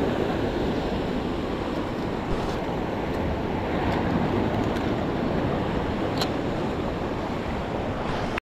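Surf washing and breaking over the rocks of a jetty, a steady rush of waves, with wind buffeting the microphone. A faint click about six seconds in.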